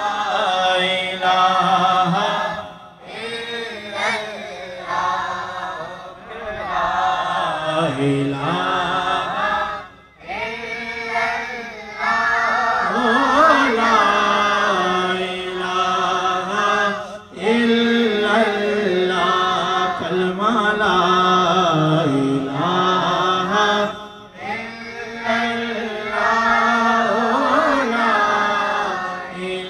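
Unaccompanied naat, an Urdu devotional song in praise of the Prophet, sung by boys and a man with a microphone, in long held phrases with brief pauses between them.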